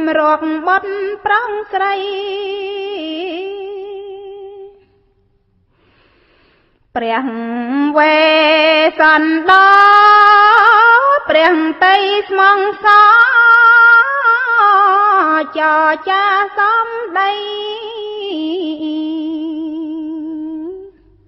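A woman chanting Khmer smot, Buddhist verse sung solo, holding long notes with a strong wavering ornament. She pauses for about two seconds about a fifth of the way in, then resumes louder and higher.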